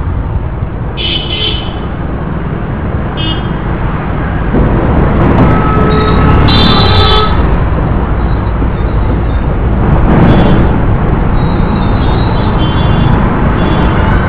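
Street traffic: cars and motorcycles running past under a steady rumble, with vehicle horns tooting, a short toot about a second in, another about three seconds in, and a longer blast around seven seconds.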